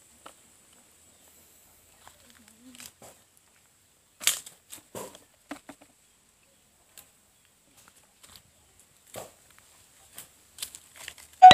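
A few scattered short clicks and rustles as leaves and side shoots are pruned from young eggplant plants, the loudest about four seconds in. Chime-like music starts right at the end.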